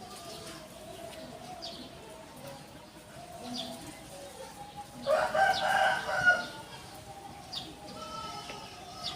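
A rooster crows once about five seconds in, a call of a little over a second, with fainter short high bird chirps before and after.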